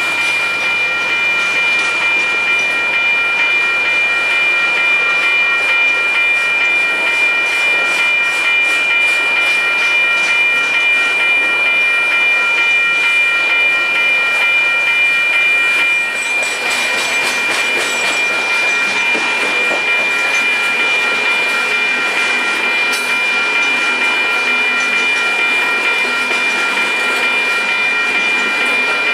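Coal hopper cars rolling past on the rails: steady wheel-and-rail noise carrying a constant high-pitched squeal, with rhythmic clicking from the wheels. About halfway through, the rumble grows fuller and deeper.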